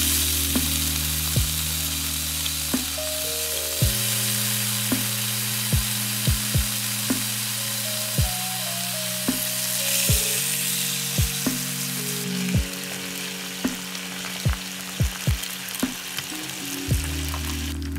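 Bacon frying in a nonstick pan: a steady sizzle with frequent sharp pops of spattering fat. Soft background music with long held chords plays underneath.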